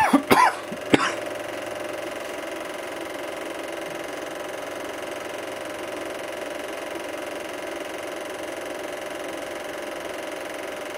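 Steady mechanical whir and hum of a Super 8 film projector running. A few short loud sounds, voice-like, come in the first second.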